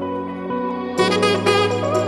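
Instrumental background music with sustained notes, turning fuller and louder about a second in.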